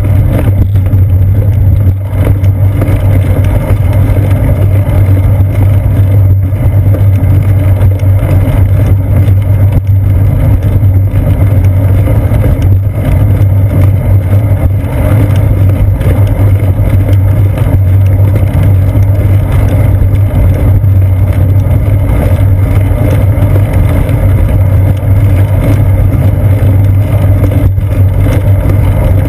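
Loud, steady rumble of wind and road vibration picked up by a seat-post-mounted GoPro Hero 2 as the bicycle rolls along a concrete sidewalk, with a few faint knocks.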